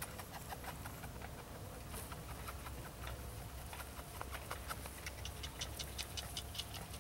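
Quick, light clicks and taps, several a second, busiest in the second half, from a litter of month-old Belgian Malinois puppies.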